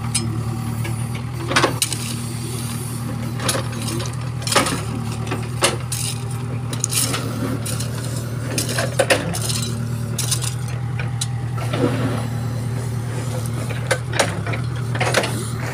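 Backhoe loader's diesel engine running steadily, with irregular clinks and scrapes of crushed stone being pushed and raked level.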